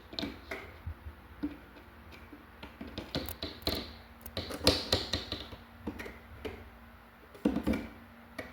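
Irregular light clicks and taps of metal cam bolts and particleboard cabinet boards being handled and fitted, with a few louder knocks about halfway through and near the end.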